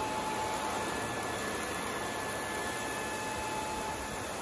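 Kündig wide belt sander with a planer head running: a steady machine noise with a faint high whine that steps up in pitch about a second in.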